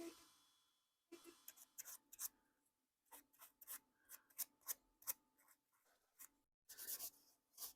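Faint, irregular scratching strokes of a tool working over the briar bowl of a tobacco pipe, cleaning out spots.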